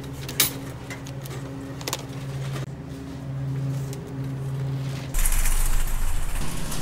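A couple of sharp clicks as drinks are handled at a glass-door store cooler, over a low steady hum. About five seconds in, the sound switches abruptly to a louder outdoor rush with a low rumble.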